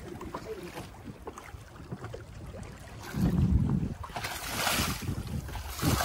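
Wind buffeting the microphone over choppy waves slapping and splashing against the bow of a small wooden boat, with louder gusts and a splash from about three seconds in.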